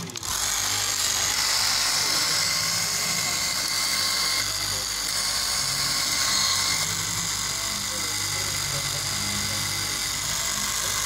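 Electric straight-knife cloth cutting machine running, its motor and reciprocating vertical blade giving a steady high-pitched whine as it cuts through a stack of fabric layers.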